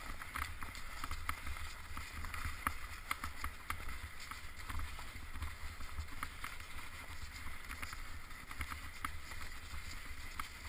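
Bicycle riding over snow and leaves on a forest trail: a steady low rumble with many irregular clicks and rattles from the bike, plus a faint steady high tone.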